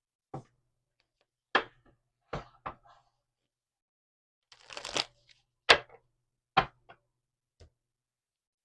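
Tarot cards being handled on a table: a series of sharp taps and slaps as cards are set down, with a brief rustle of cards shortly before the middle.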